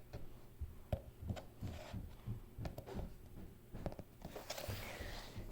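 Faint, irregular taps and low thuds, the handling noise of small objects being moved about.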